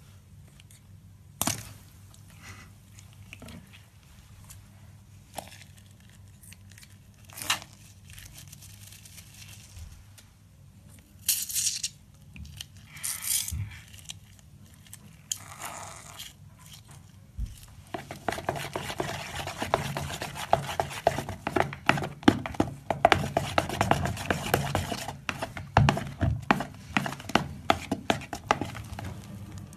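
Slime being worked by hand: a few sharp clicks and short crackly bursts at first, then, after about eighteen seconds, a long run of dense crackling and popping.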